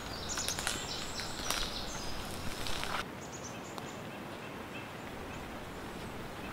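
Footsteps rustling and crackling through dry bracken and leaf litter, with short high bird calls over them; about three seconds in it turns quieter, leaving faint bird chirps.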